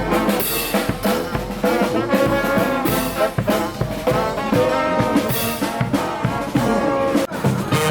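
Street brass band playing: trumpets and trombones sounding sustained notes over steady drumming, with a momentary break about seven seconds in.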